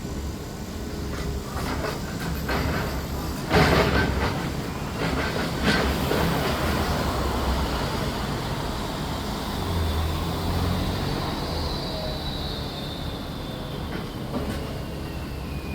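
Heavy demolition machinery working: a steady rumble with metallic clanks and crashes, the loudest about three and a half seconds in, and a high squeal slowly falling in pitch near the end.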